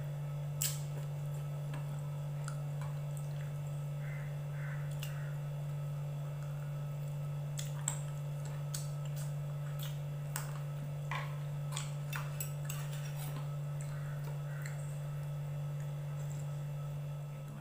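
A person eating noodles: a fork and spoon clicking irregularly against a ceramic bowl, with small mouth sounds, over a steady low hum.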